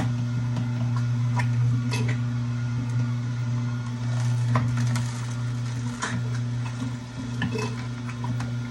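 Steady low hum with scattered clinks and knocks of dishes and utensils being handled.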